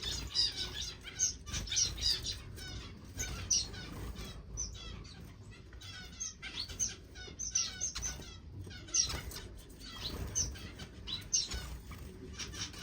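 A roomful of small caged finches chirping and calling, many short high chirps and quick trills overlapping without a break, with wings fluttering now and then.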